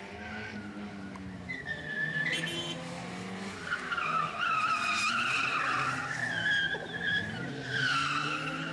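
Small hatchback's engine revving hard through slalom turns, with its tyres squealing in short bursts as it corners: briefly about two seconds in, longest through the middle, and again near the end.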